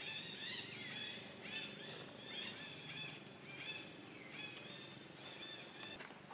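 Newborn long-tailed macaque crying: a string of high, wavering cries, about one or two a second, each rising and falling in pitch. A couple of sharp clicks come near the end.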